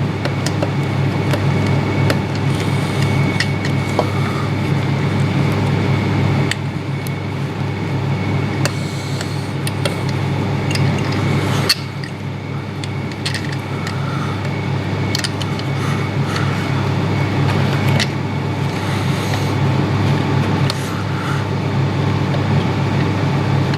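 A steady low hum with a faint high tone over it, with scattered light clicks and taps of hand tools and metal parts on the motorcycle engine's cylinder head.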